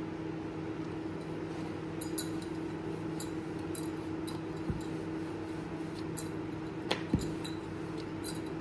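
Chapati dough being handled and rolled out in a kitchen: faint small clicks and ticks, with a few sharper soft knocks about halfway through and near the end, over a steady low hum.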